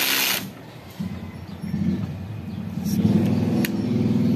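Cordless drill driving a wood screw into wood, straining. A harsh hissing burst in the first half second, then from about a second in the drill's steady motor drone, which grows louder from about three seconds in.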